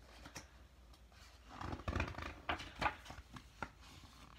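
A book being handled as a page is turned: a rustle of paper with a few light knocks. The rustle comes about a second and a half in, and two sharper knocks follow near the three-second mark.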